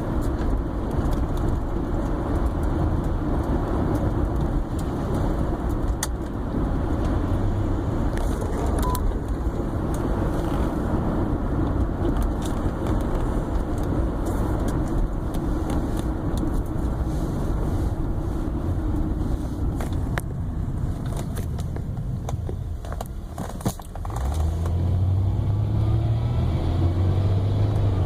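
Car running and accelerating with a weird noise, a steady mechanical drone over road noise. It drops a little quieter for a few seconds, then swells again with a stronger low hum near the end.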